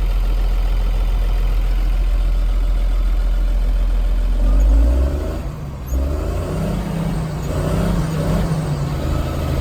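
Caterpillar D5N crawler bulldozer's diesel engine running steadily. About halfway through, its note shifts and wavers up and down for several seconds, as the engine is revved or put under load, then it settles.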